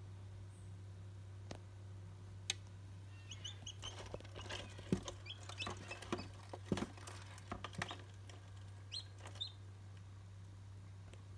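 Newly hatched chick peeping in short high cheeps, in two bouts, with scattered taps and knocks in between, over a steady low hum.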